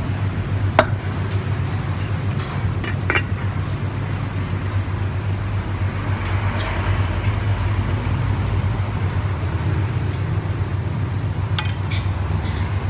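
Steady low background rumble of a busy hawker stall, with a few light clinks and knocks from plates, a cleaver and utensils being handled, twice near the start and a quick cluster near the end.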